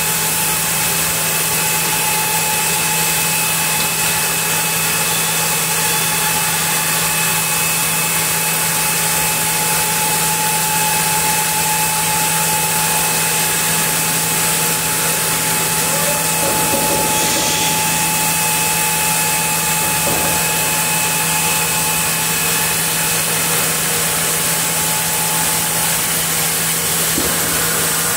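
Band sawmill sawing a camphor log: steady machine noise with a constant low hum and high whine.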